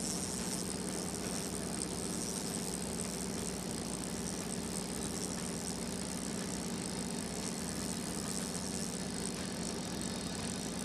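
Steady drone of a fishing boat's engine running at an even, idling pitch, a low hum with hiss above it.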